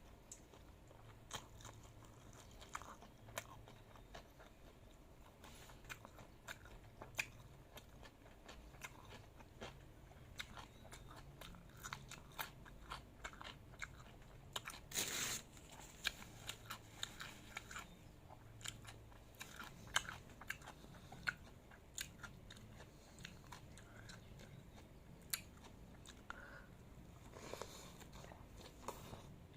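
Close-miked eating: irregular crisp crunches and chewing, with a longer, louder crunching noise about halfway through.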